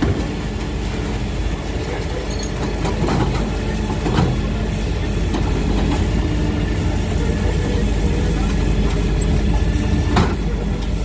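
Faun Rotopress rear-loading garbage truck running steadily, its bin lifter raising and tipping wheelie bins into the hopper. Several knocks of plastic bins, the sharpest about ten seconds in.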